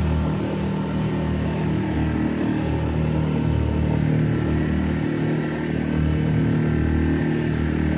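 A small open tour boat's engine running steadily while under way.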